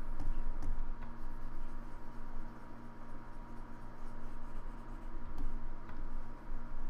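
Steady electrical hum and hiss from the recording setup, with a few scattered faint clicks and scratches as the painting tool is worked on the desk.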